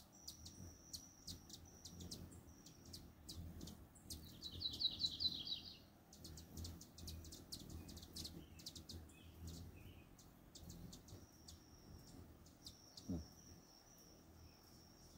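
Hummingbirds at close range: repeated sharp high chip notes, several stretches of a thin high buzzing trill, and a burst of fast chittering about four seconds in.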